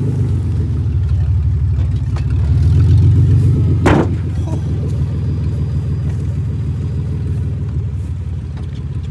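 Ford Explorer's engine running under throttle across grass, growing louder for about three seconds. A single sharp bang comes about four seconds in as the SUV strikes the ramp, and the engine then runs on more quietly.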